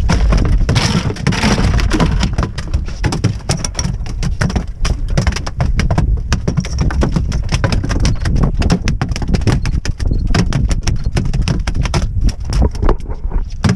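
Rapid, irregular sharp clicks and taps over a steady low rumble of wind on the microphone.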